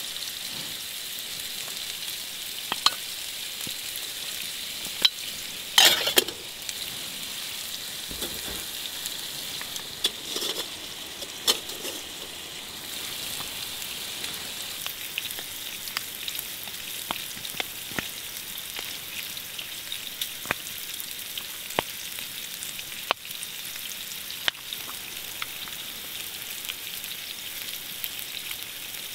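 Steak sizzling in a frying pan on a wood stove: a steady hiss with scattered pops and crackles. A few louder clicks and knocks come through, the loudest about six seconds in.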